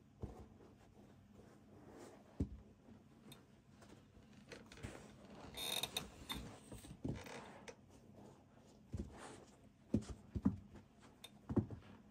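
Nike SB Force sneakers being dangled and slipped on and off sock-clad feet: scattered soft thumps of the shoes against the carpeted floor, with a brief scuffing rustle about halfway through and a cluster of thumps near the end.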